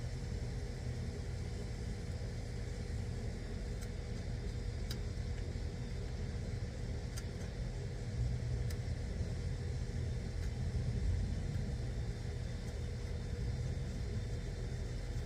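Air conditioning unit running steadily with a low rumble and a constant hum, with a few faint clicks from handling. It keeps running when it should be switched off, which the technician first suspects is a stuck contactor.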